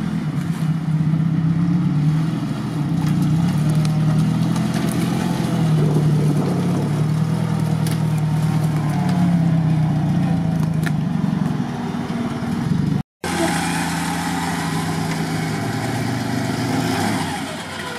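A UAZ off-roader's engine running under load as it crawls through mud, the revs rising and falling. After a cut about 13 seconds in, a second SUV's engine runs more steadily.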